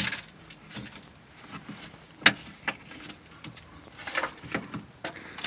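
Scattered light knocks and clicks from handling around a stripped car body, with one sharper knock a little over two seconds in.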